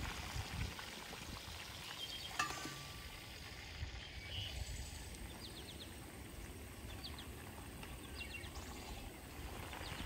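Steady low rumble of wind on the microphone, with a few faint bird chirps and a single light knock.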